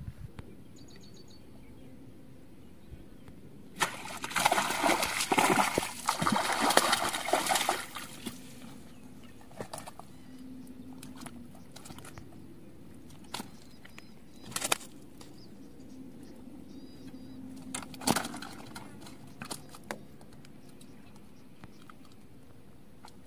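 A hooked rohu thrashing and splashing in the pond for about four seconds as it is hauled in, then a few scattered knocks and slaps as the fish is handled on the bank.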